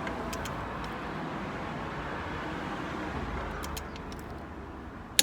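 A few light metallic clicks of a socket wrench being worked onto a bolt, over a steady rustling handling noise, with one sharp loud click near the end.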